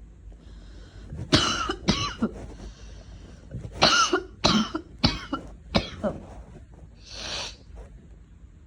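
A person coughing from a lingering cold: two coughs, a pause, then four more in quick succession. A longer noisy breath follows near the end.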